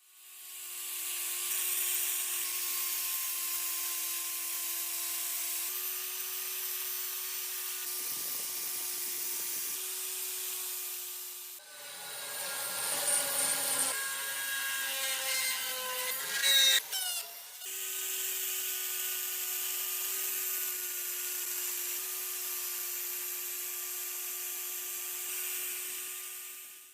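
An electric power tool running with a steady whine and hiss as it works on the rusty cleaver. Partway through, a few seconds where the whine shifts and glides in pitch and gets louder, then it settles back to steady.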